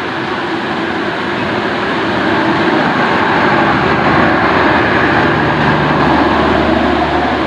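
LHB passenger coaches of an express passing at speed, a steady rushing rumble of wheels and bogies on the rails that grows louder over the first few seconds. A low steady hum joins in about two-thirds of the way through as the diesel generator car goes by.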